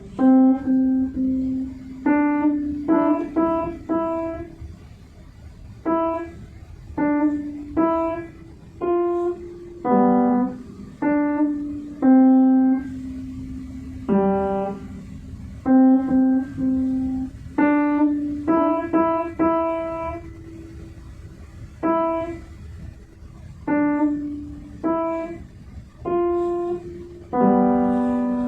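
Piano playing a slow, simple melody one note at a time, each note struck and left to fade, with a lower note sounding beneath the tune now and then.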